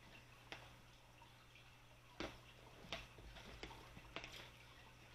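Faint, scattered clicks and scrapes of hands working at the packing tape on the top seam of a cardboard box, about five small sounds with the clearest near the middle, over a low steady hum.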